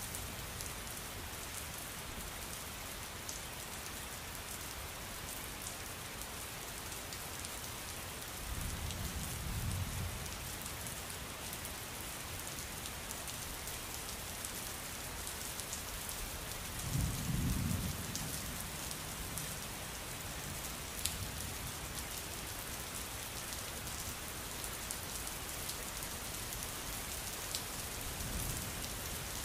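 Steady rainstorm: a constant hiss of rain falling on surfaces, with scattered sharp ticks. Low rumbles of distant thunder come about a third of the way in, more strongly a little past halfway, and again near the end.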